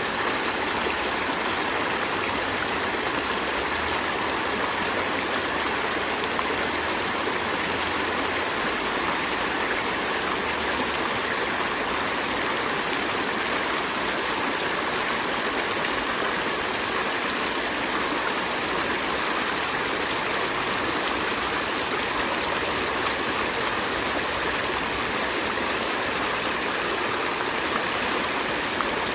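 River stream flowing steadily, a continuous rush of water with no breaks or changes.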